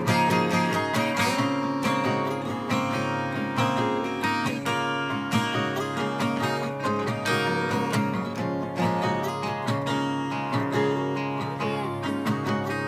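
Two acoustic guitars played together, strummed and picked in a steady rhythm.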